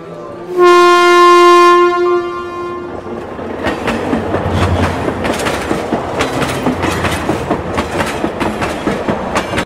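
A train horn sounds one long blast about half a second in. Then a train's wheels clatter rhythmically over the rail joints as it runs in, until the sound cuts off suddenly.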